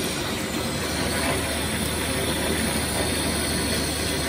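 HPSM 6-foot lathe running, its tool turning a steel shaft: a steady machine hum with the even hiss of the cut.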